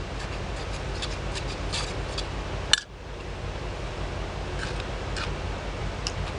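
Faint clicks and rubbing from plastic pipe fittings being handled while they are primed, with one sharper click about three seconds in, over a steady low background rumble.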